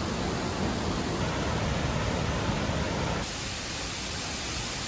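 Steady rush of a waterfall's falling water. About three seconds in it changes abruptly to a brighter, hissier rush.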